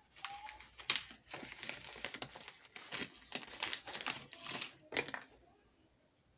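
Crinkly rustling handling noise with many quick taps and clicks as makeup brushes and tools are picked up and set down, stopping about five seconds in.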